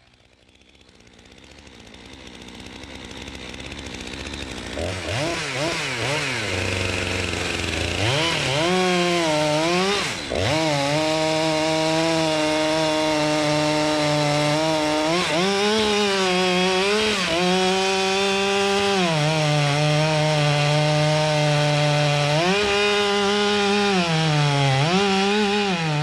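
Two-stroke chainsaw bucking a large log: the engine revs up and then runs at high speed through the cut, its pitch sagging and picking back up several times as the chain bites into the wood. It grows louder over the first several seconds.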